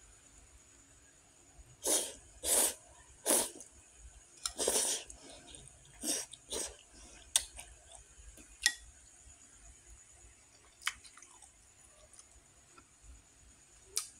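A person slurping instant noodles: six short slurps in quick succession, the fourth the longest, followed by a few sharp clicks of utensils against the ceramic bowl.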